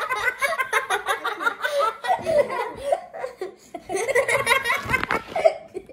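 Girls laughing, in quick choppy pulses, after one has been hit with chocolate syrup by the Pie Face game's plastic hand. A short knock comes about five seconds in.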